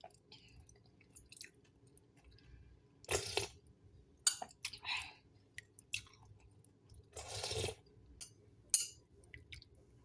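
A person eating: chewing sounds with scattered short clicks and a few louder noisy bursts.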